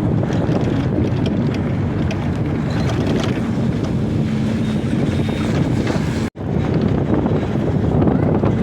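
Wind buffeting the microphone: a steady, loud rumble that cuts out for a split second about six seconds in.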